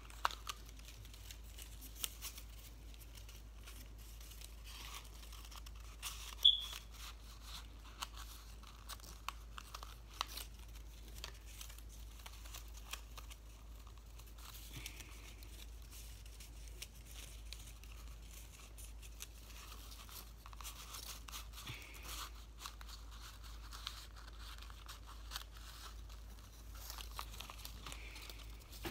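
Paper rustling and crinkling as hands fold and handle paper strips around a rolled paper tube, with scattered small ticks and one sharper tick about six and a half seconds in.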